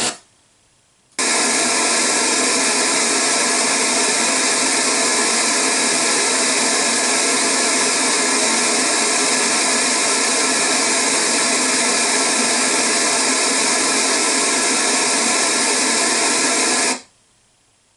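Full-range pink noise played through a Diamond Audio MP654 6.5-inch motorcycle speaker in a fairing pod, reading about 98 dB SPL. It is a steady, loud hiss that cuts in about a second in and stops suddenly near the end, with a moment of silence on each side.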